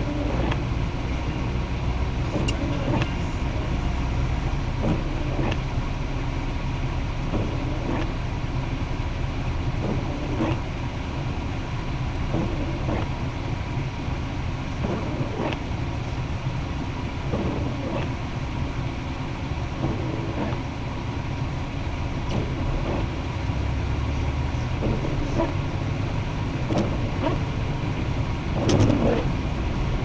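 Steady engine and road rumble inside a car driving on a snowy street, with a short knock about every two and a half seconds as the windshield wipers sweep across the glass.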